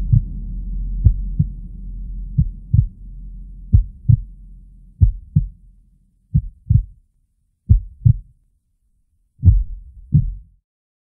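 Heartbeat sound effect: seven pairs of low thumps, a pair about every 1.3 seconds, the last pair coming a little later. A low hum under the first beats fades away within about four seconds.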